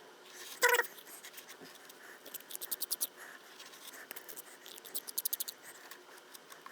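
Plastic spreader scraping epoxy over the foam fuselage of an RC airplane in two quick runs of rapid strokes, with one short louder sound under a second in.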